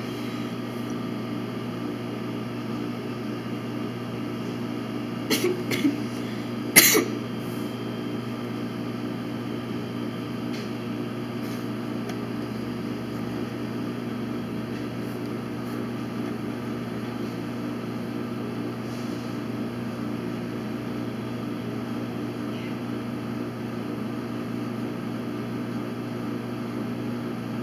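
Steady low machine hum of a quiet room, with a few short sharp sounds about five to seven seconds in, the last the loudest.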